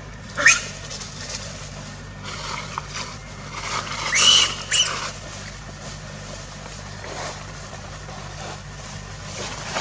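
Macaque calls: a short rising high-pitched call about half a second in, then a few rising, curving calls near the middle, over a steady low hum.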